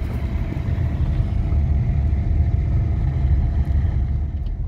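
Car driving along an unpaved dirt road, heard from inside the cabin: a steady low rumble of engine and tyres.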